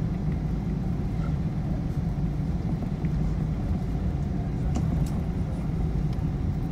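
Cabin noise of a Boeing 777 taxiing after landing: a steady low rumble from the engines and the rolling airframe, with a few faint clicks.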